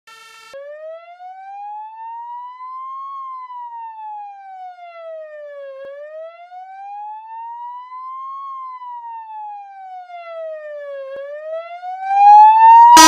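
Electronic police siren wail from a siren simulator app on a phone, one tone rising and falling slowly in pitch, about five seconds per cycle. It gets much louder near the end as the phone volume is turned up.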